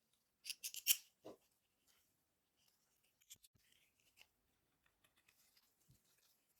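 Small parts being handled and fitted by hand: a quick run of sharp clicks and scrapes about half a second in, then faint scattered ticks.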